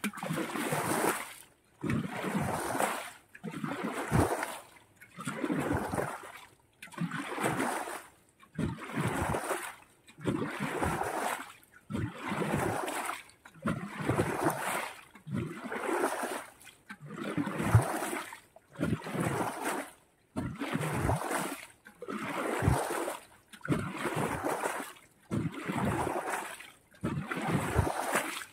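Pond water splashing in a steady rhythm, about one splash every second and a half, some with a low thud beneath.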